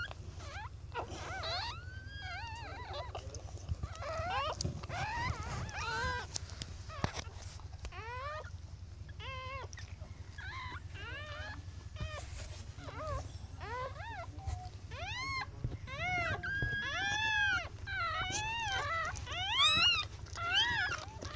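Newborn puppies whimpering and squeaking in short, high cries that rise and fall in pitch, coming thicker and louder over the last several seconds.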